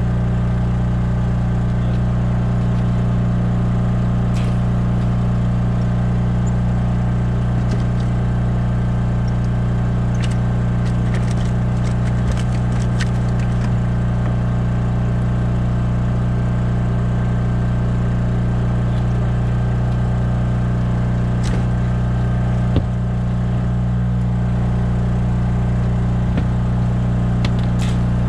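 Small engine running steadily at constant speed, a low even drone, with scattered sharp clicks and a single knock a little before the end from fishing gear being handled on the boat.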